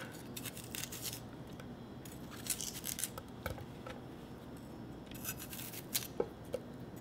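Kitchen knife slicing through a peeled Korean pear, a few faint, scattered cuts, with a couple of light taps near the end.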